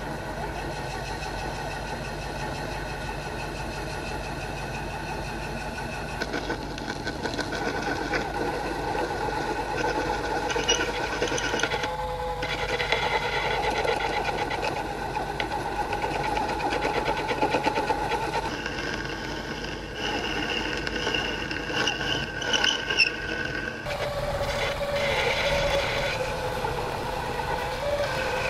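Small DIY lathe spindle turning a brass workpiece while a boring bar cuts inside its bore: a steady motor whine with several fixed tones over a rough cutting noise, changing in tone and loudness a few times as the cut goes on.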